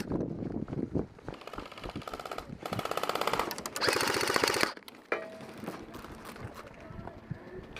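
Electric airsoft guns firing three rapid full-auto bursts of a second or so each. The third burst is the loudest.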